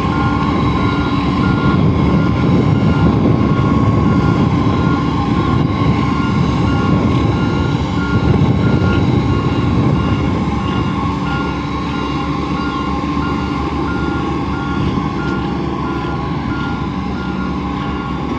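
Heavy road-construction machine's diesel engine running steadily while its reversing alarm beeps at an even pace, about one beep a second.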